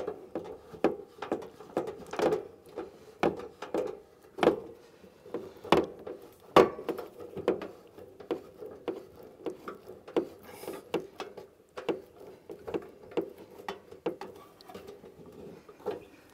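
Brass gas-hose fitting being screwed by hand onto a camping gas stove's inlet: many irregular light clicks and taps of metal, with some rubbing.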